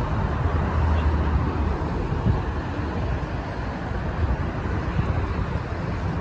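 Distant airliner jet engines rumbling steadily across the airfield, a low rumble that eases a little about two seconds in.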